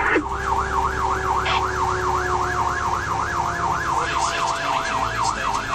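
Fire engine's siren in a fast yelp, its pitch swinging up and down about four times a second, heard from inside the cab over the truck's engine. Underneath it, a steadier lower siren tone slowly falls in pitch.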